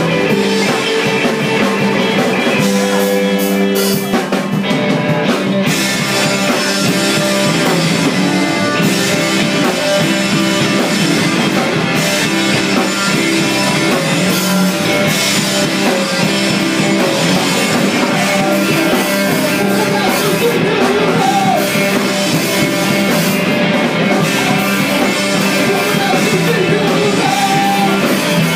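Live rock band playing loudly: distorted electric guitars, bass guitar and drum kit, with a singer's vocals.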